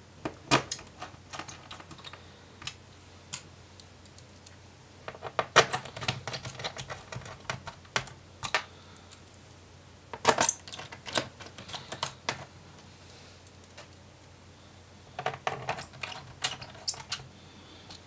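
Small screws being set and driven into a laptop's plastic base panel with a small Phillips screwdriver: light metallic clicking and rattling in four bursts, each a second or two long, about five seconds apart.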